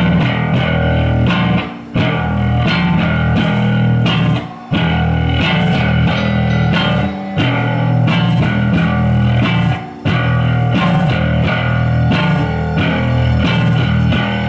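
Live rock band playing: electric guitar over a heavy bass guitar line, with drums. The band stops short for a moment about every two and a half to three seconds.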